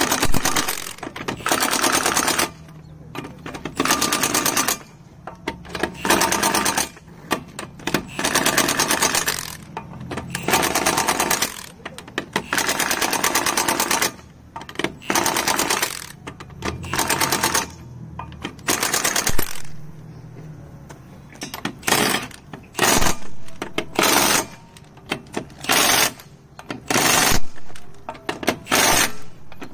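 Cordless impact wrench hammering in repeated bursts of about a second each, tightening the wheel's lug nuts. The bursts grow shorter and come quicker near the end.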